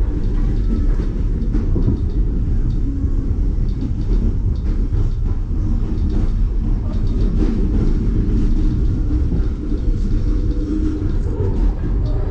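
Train running along the track, a steady low rumble with faint clicks from the wheels over the rails.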